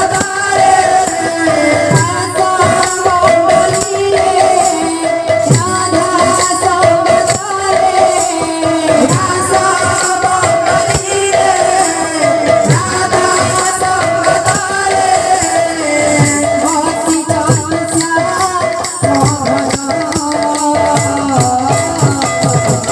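Sambalpuri kirtan music: voices singing a melodic devotional line over hand-beaten barrel drums and jingling percussion, keeping a steady beat.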